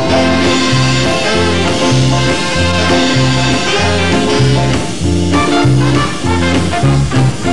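Big band playing a swing-style instrumental passage, saxophones and brass over a steady, evenly paced bass line.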